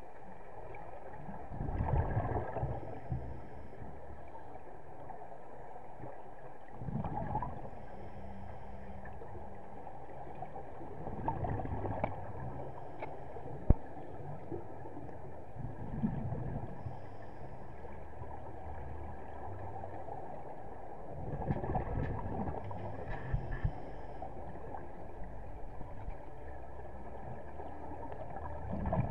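Scuba diver's regulator heard underwater: bubbly, gurgling exhalations swelling up every four to five seconds over a steady low hum.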